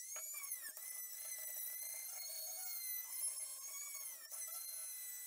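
Dremel rotary tool grinding and polishing the welds on a steel exhaust silencer: a high, steady whine that rises as it spins up at the start and dips in pitch briefly a couple of times.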